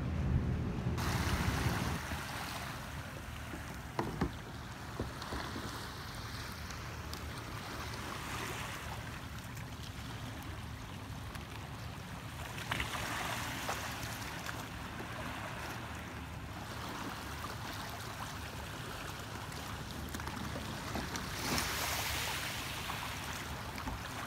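Small sea waves lapping in the shallows, a steady wash of water, with wind rumbling on the microphone for the first couple of seconds and a few brief knocks.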